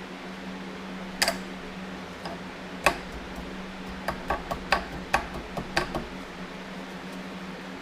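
Hard clicks and taps of engine parts and hand tools being handled on a workbench: two single clicks, then a quick run of about eight within two seconds, over a steady low hum.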